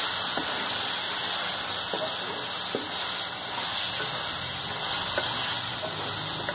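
Chicken pieces sizzling in oil and ground green masala in a steel karahi, a steady hiss as the meat is browned (bhuna), with a few light knocks of a wooden spoon stirring it.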